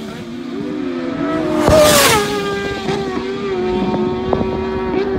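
Road-racing motorcycle passing at speed about two seconds in, its engine note dropping as the throttle is shut off for braking, with a sharp pop from the exhaust. Engine notes carry on steadily afterwards, with a couple more small pops near the end.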